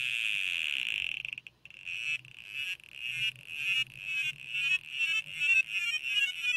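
The micro:bit V2's built-in speaker playing its power-on demo sounds: a steady high electronic buzz for about a second and a half, a brief break, then a string of short warbling beeps that come closer together toward the end.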